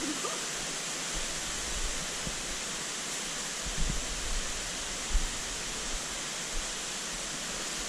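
Steady rush of a mountain torrent and its waterfalls, with a few footstep thumps on the trail around four and five seconds in.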